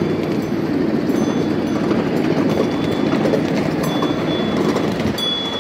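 Ride-on miniature railway train running along its track, heard from aboard: a steady rumble of small wheels on rail, with a thin high squeal coming and going in the second half.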